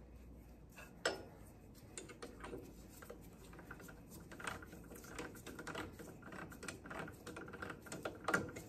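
Quiet, irregular metallic clicks and taps as a valve's hose-sleeved stem is fitted into a benchtop drill press chuck and the chuck is tightened by hand. A sharper knock comes about a second in, and the loudest near the end.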